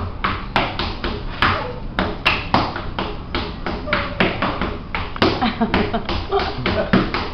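Rattan sticks clacking in quick, irregular sharp taps, several a second, with voices underneath.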